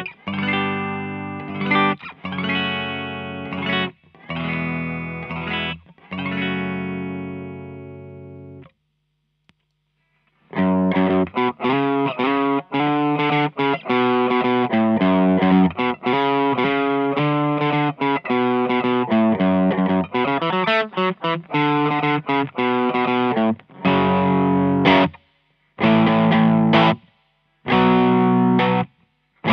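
Gibson Les Paul humbucker guitar overdriven through a Tube Screamer-style overdrive pedal into a Fender Blues Deluxe tube amp, with the Visual Sound Route 808 switched on for the later playing. Several long ringing chords come first, then a short pause, then a fast riff of quick notes, and it ends with short stabbed chords. The player switches between the bridge and neck pickups.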